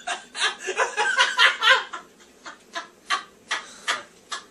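A man's laughter: a quick run of laughing breaths for about two seconds, then a few separate chuckles that die away.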